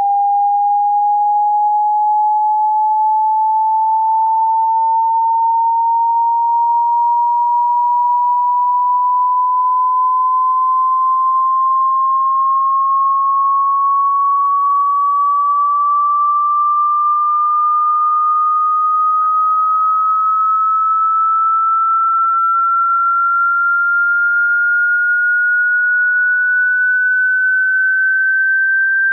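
A pure sine test tone from a hearing-test frequency sweep, gliding slowly and evenly upward in pitch by about an octave at one steady loudness.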